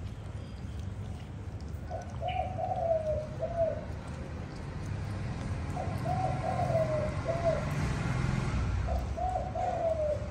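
A dove cooing: three phrases of several coos each, one every three to four seconds.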